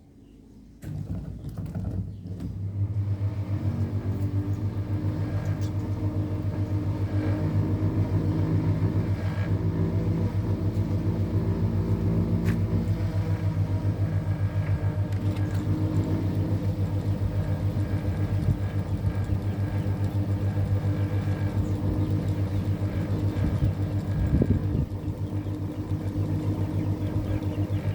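Electric ceiling fan motor switched on about a second in, humming with a steady low mains-frequency hum that builds over the first few seconds as the fan spins up, then runs evenly.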